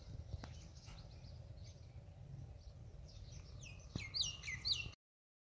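A small bird giving a quick run of sharp, falling chirps over about the last second and a half, over a steady low outdoor rumble; the sound cuts off abruptly about five seconds in.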